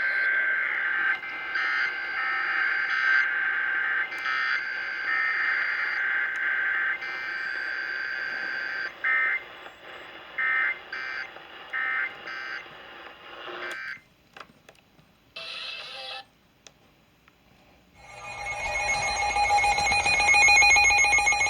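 Emergency Alert System broadcast tones: a steady, high screeching data tone with brief gaps, then a few short repeated bursts. After a few seconds of near silence broken by one short burst, an alert attention tone starts near the end and grows louder.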